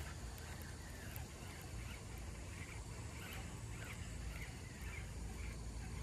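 Baitcasting reel being cranked, winding in line on a lure retrieve, under a steady low rumble. Faint chirps recur about twice a second.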